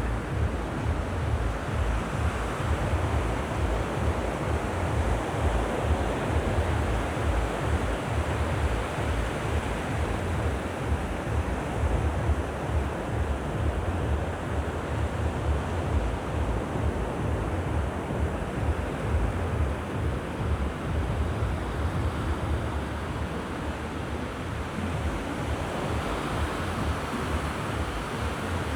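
Sea waves washing onto a beach in a continuous hiss that swells and eases a little, with wind buffeting the microphone as a flickering low rumble underneath.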